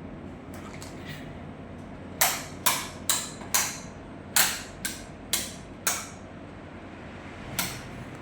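Keys of a Logitech G515 low-profile mechanical keyboard pressed one at a time: a few faint clicks, then eight sharp clacks over about four seconds, and one more near the end.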